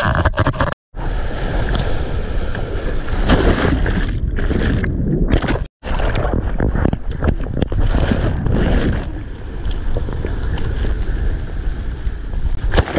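Seawater rushing and splashing close against an action camera while surfing, with wind buffeting the microphone. The noise surges and eases, and drops out to silence for a moment twice.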